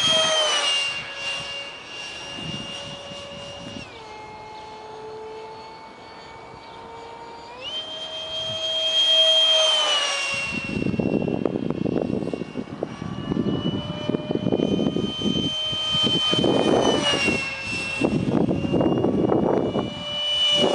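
Detrum 70mm electric ducted fan of a foam RC jet whining in flight overhead. Its pitch drops about four seconds in as the throttle eases and climbs back up near the eight-second mark. From about halfway through, an uneven low rushing noise runs under the whine.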